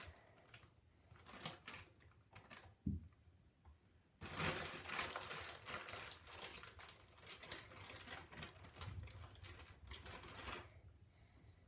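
Rapid crackling and crinkling of a plastic bag of shaving foam and slime being squeezed and worked by hand: scattered at first, dense from about four seconds in, stopping near the end.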